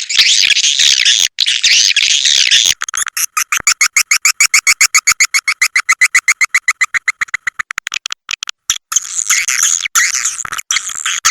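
Swiftlet call-sound lure track: recorded swiftlet twittering, dense and high, then from about three seconds in a fast even run of clicking chirps, about ten a second, before the dense twittering returns near the end.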